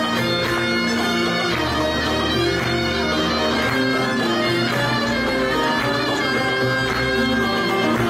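Turkish folk music ensemble of bağlamas (saz) playing an instrumental passage, a steady melody of held notes with no singing.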